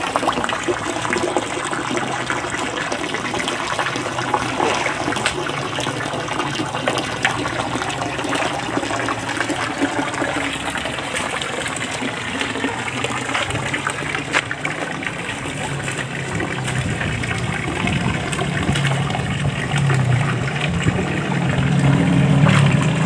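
Steady rush of water pouring from a pipe into a drained concrete fish pond and splashing into the shallow water. A low hum grows louder near the end.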